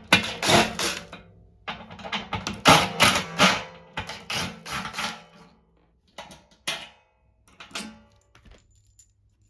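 Irregular metallic clanks and rattles of a heat pump's sheet-metal blower assembly being worked loose and handled, with a ringing tone under the hits. They come thick and fast at first, then thin out to a few separate knocks.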